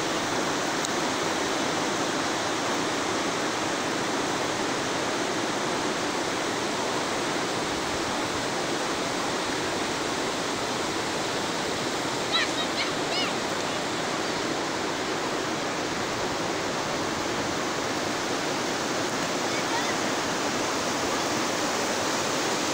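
Shallow, fast river rushing over stones in a steady, unbroken wash of water noise. A few brief high chirps sound about twelve seconds in.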